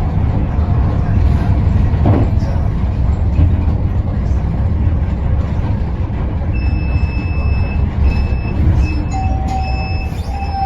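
TransJakarta city bus, heard from inside the cabin while it moves: a steady low engine and road rumble with a knock about two seconds in. From about two-thirds of the way through, an electronic beep repeats, one long beep and then about one every 0.7 s, and a steady whine comes in near the end.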